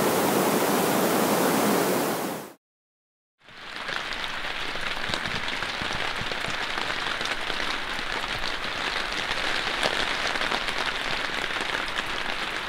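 A loud steady rushing noise cuts off abruptly about two and a half seconds in. After a second of silence, rain falls on a tarpaulin shelter: a steady patter with many small drop clicks.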